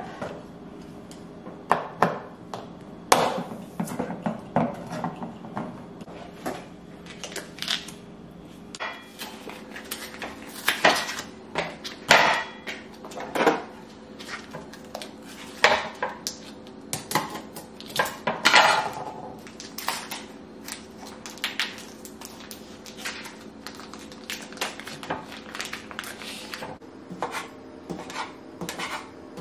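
Kitchen knife knocking on a cutting board as food is sliced, with irregular taps and clatter of kitchenware on the counter, over a faint steady hum.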